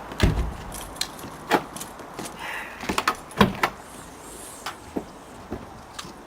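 A run of irregular sharp clicks and knocks from objects being handled, loudest in the first few seconds.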